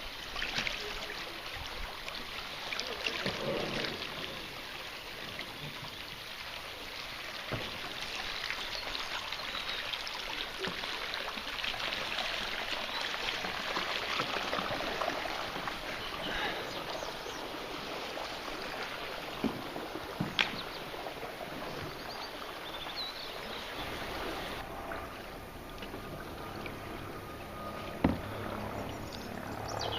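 Floodwater running and splashing steadily, with a few short sharp knocks about two-thirds of the way through and near the end.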